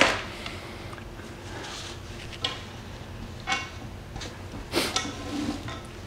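A sharp metal clank as a pipe wrench is set down, ringing off briefly, then three lighter metallic clinks of small metal parts being handled, one with a short ring.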